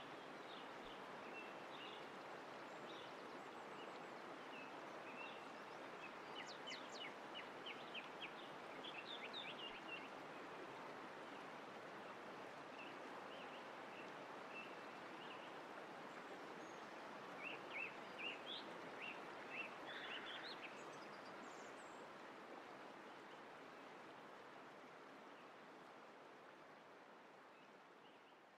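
Quiet nature ambience: a steady rush of running water with birds chirping in quick series of short calls, twice, fading out near the end.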